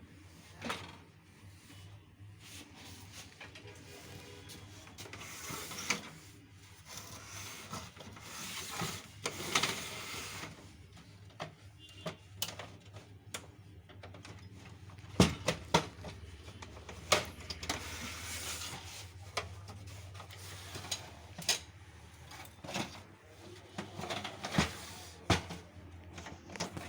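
Irregular clicks, knocks and rubbing of plastic and metal parts from a Canon LBP 2900 laser printer being worked on, over a low steady hum.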